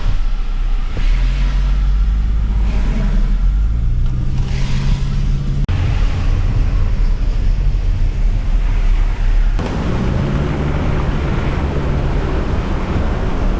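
A car driving along a road: the engine runs with its pitch rising as it accelerates, over steady road and wind noise.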